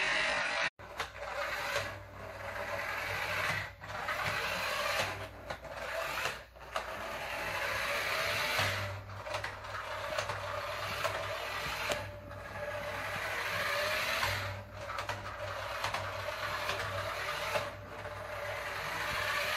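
Small electric drive motor and gears of an RC car whirring as it drives over a hardwood floor. The whirr cuts out briefly again and again as the car stops and goes.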